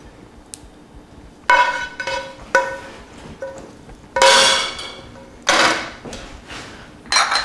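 A run of about six separate struck sounds, each ringing and fading over about a second. The loudest come a little past the middle.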